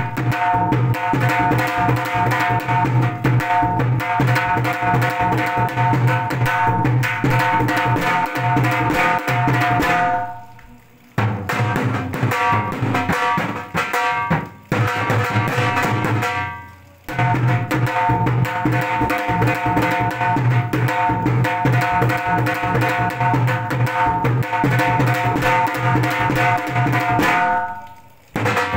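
Two dhols played together with sticks in a fast, steady rhythm of dense strokes with a ringing drum tone. The drumming breaks off briefly about ten seconds in, again at about seventeen seconds, and near the end, then starts up again each time.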